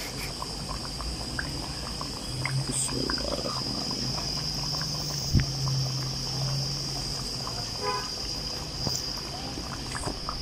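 Coated chicken pieces deep-frying in hot oil on low heat, the oil bubbling and sizzling steadily with many small crackles. A single sharp click sounds about five seconds in.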